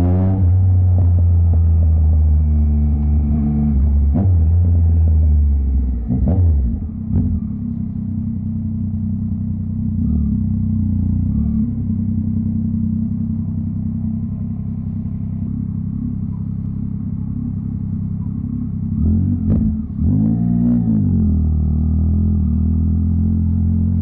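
Yamaha MT-09's three-cylinder engine and exhaust: running low off the throttle, then idling for much of the time, with a couple of short throttle blips, the second about three quarters of the way in, and revving higher as the bike pulls away near the end.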